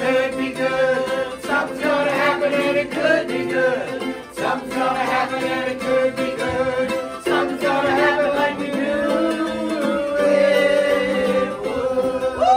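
A small group of women singing together, accompanied by a strummed ukulele and mandolin, ending on a long held note near the end.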